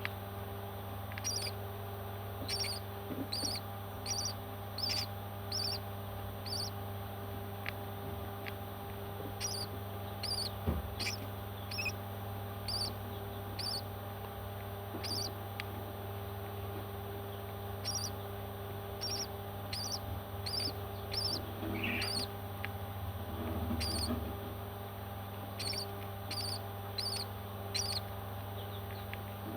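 Baby parrots chirping: many short, high calls repeated throughout, often several in quick succession, over a steady low hum.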